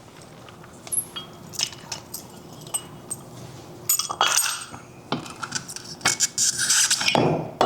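Steel anti-theft track lock being unlocked and taken off a mini skid steer's track: keys jangling and a run of sharp metal clinks and clanks as the puck lock, pin and steel plates are handled, busiest near the end.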